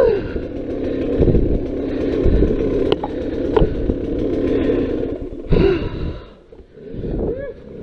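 Dirt bike engine running on steady throttle, with a few sharp knocks. About five and a half seconds in it is revved briefly, drops back to a low idle for about a second, then picks up again with quick revs near the end.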